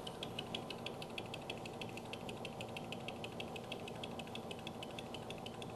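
Metal lathe running, with a faint rapid ticking, about six or seven ticks a second, as the cutting tool's tip touches the double-sided tape that holds a thin aluminium disc to the faceplate.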